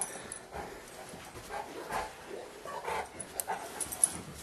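Saint Bernard making soft whimpering and panting sounds, with a few sharp clicks, the loudest about four seconds in.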